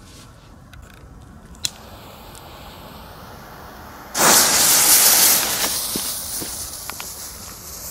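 Funke Funkenschlag 3 firecracker's flame charge going off with a sudden loud hiss about four seconds in. The hiss holds for about a second and a half, then dies down into a softer hissing with a few small crackles. A single faint click comes earlier.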